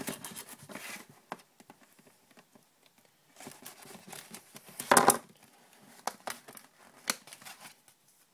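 A sealed trading-card box being cut and torn open by hand with a knife: wrapping and cardboard tearing and crinkling, with scattered clicks and a loud rustle about five seconds in.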